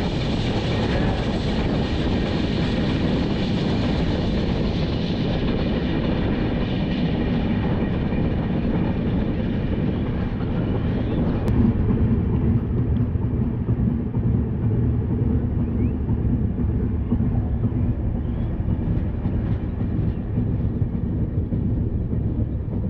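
Express train running, heard from an open coach door: a steady rumble of wheels on rail with the rush of wind. About halfway through, the higher rush thins out, as the train slows for a red signal at the station outer.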